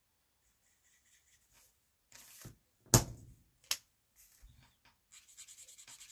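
Stampin' Blends alcohol marker scratching on cardstock, with rapid back-and-forth colouring strokes near the end. A little before the middle come two sharp plastic clacks, the first the loudest sound, as the marker is set down on the table and picked up again.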